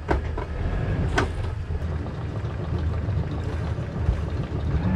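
Sailboat's inboard diesel engine idling with a steady low rumble, with two sharp knocks, one at the start and one about a second in.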